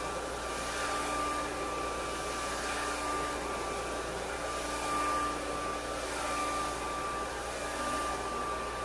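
Handheld hair dryer running steadily: a constant rush of blown air with a steady high whine from its motor, during a blow-dry of a girl's hair.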